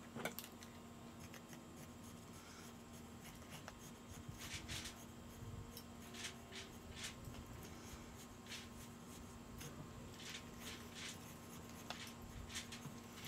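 Knife point scratching and picking at the sealed top of a small plastic spice bottle to open it: a string of faint, irregular scrapes and clicks.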